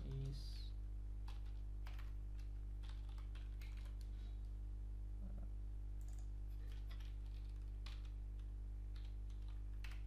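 Typing on a computer keyboard: irregular, scattered key clicks over a steady low hum.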